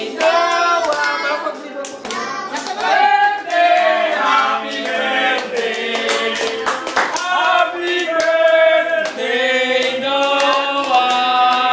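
A small group of family voices singing a birthday song together, with hands clapping along.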